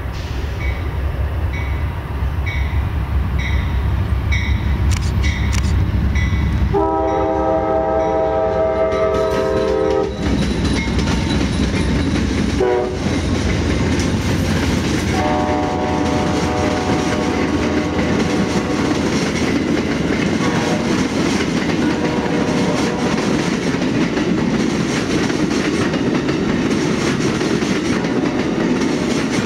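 Amtrak GE P42 Genesis passenger locomotives passing at speed and sounding their multi-chime air horn: one long blast about seven seconds in, a short toot near thirteen seconds, and another long blast from about fifteen seconds. Before the horn a bell dings steadily over a low rumble. After it the passenger cars roll by with steady wheel-on-rail noise and clickety-clack.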